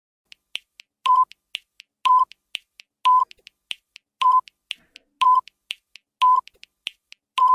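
Quiz countdown timer sound effect: quick clock-like ticking with a short beep about once a second as the seconds count down.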